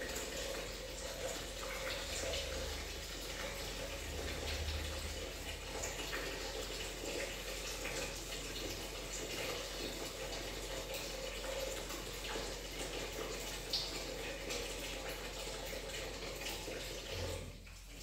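Water running steadily from a kitchen tap into a sink, stopping near the end.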